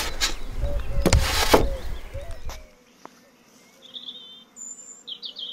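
Clunks and rumbling handling noise as a wooden hive roof is handled, with a couple of sharp knocks. Then it drops to a quiet stretch: a faint steady buzz of honeybees at the nuc entrances, with a few short bird chirps near the end.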